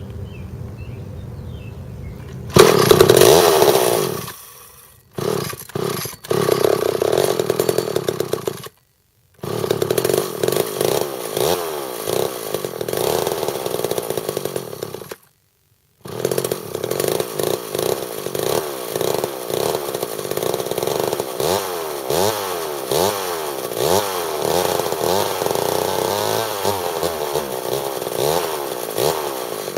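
A two-stroke chainsaw engine fires up loudly, dies down and catches again, then runs with the throttle blipped over and over, revving up and down. It runs only on nearly full choke, which the owner takes as a sign that the carburetor needs a rebuild kit.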